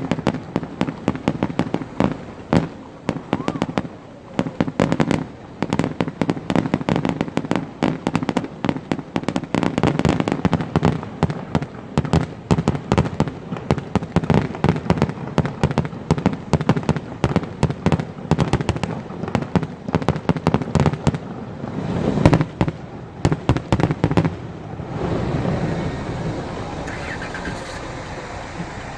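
Aerial fireworks display: a rapid, dense string of bangs and crackles that stops suddenly about 25 seconds in, leaving a steady background rumble.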